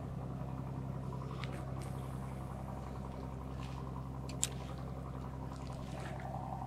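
Steady low drone of a distant boat engine on the river, with a few faint clicks and one sharper click about four and a half seconds in.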